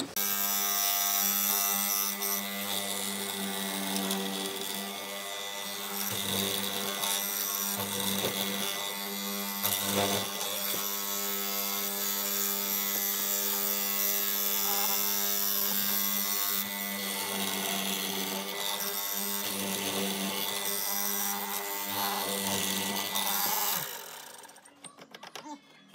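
Benchtop hollow-chisel mortiser running with a steady motor hum, its chisel and auger boring into pine now and then. The motor sound drops away near the end.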